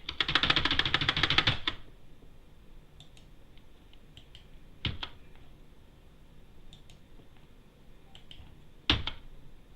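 Computer keyboard typing: a fast burst of keystrokes lasting under two seconds, then a few scattered single key clicks, the two loudest about five and nine seconds in.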